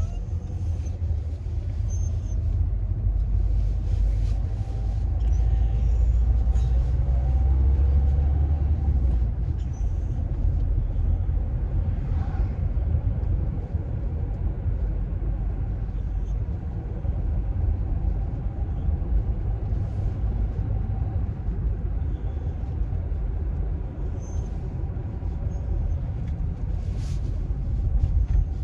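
Car driving, heard from inside the cabin: a steady low rumble of engine and road noise, a little louder about six to nine seconds in.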